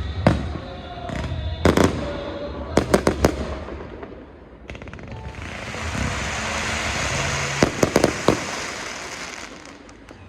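Fireworks display: aerial shells bursting in sharp bangs, one after another, with a quick cluster about three seconds in. From about five seconds a steady hissing crackle fills in, with another run of bangs near eight seconds.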